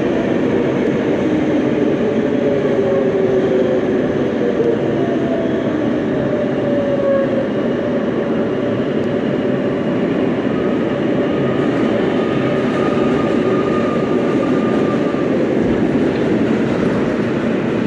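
Inside an R143 New York subway car running at speed: a steady rumble of wheels on rail, with faint whining tones that slide slowly in pitch.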